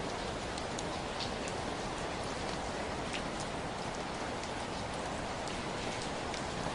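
Steady rain falling: a constant hiss with scattered sharper ticks of single drops landing.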